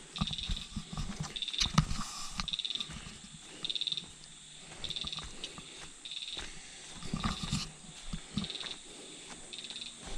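Footsteps on a forest trail, with a high, short trilled call repeating about once a second throughout.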